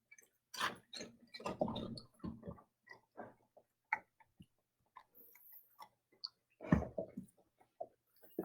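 Dog chewing and licking up crumbs of a dog cookie, a run of small irregular crunches, clicks and smacks.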